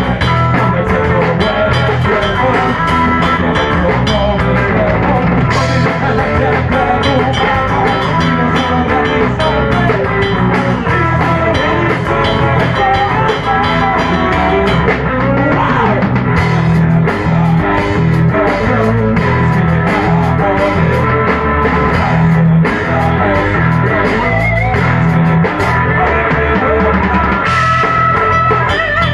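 Rock band playing live and loud: electric guitars over a drum kit with cymbals, without a break.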